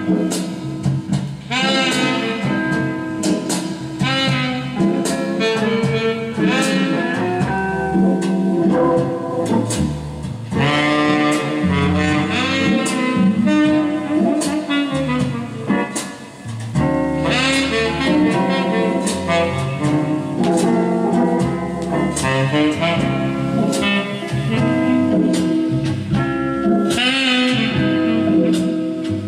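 Jazz with saxophone playing from a vinyl LP on a 1973 Philips GF 808 stereo record player, heard through its two speakers.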